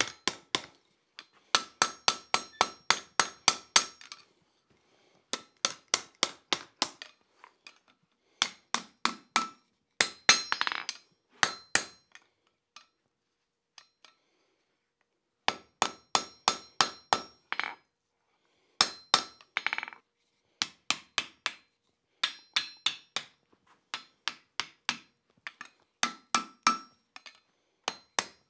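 Blacksmith's hand hammer striking a red-hot steel tong blank on an anvil, upsetting the corners of the jaw. The blows come in runs of about three to four a second, each with a bright ring from the anvil, broken by short pauses.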